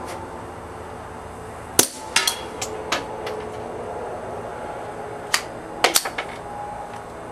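Suppressed Browning Buck Mark .22 LR pistol firing through an SWR Spectre suppressor: short, sharp cracks with the metallic clack of the action, in a cluster about two seconds in and another about five to six seconds in. Each shot is quiet enough that the dink of bullets striking a target box downrange can be heard.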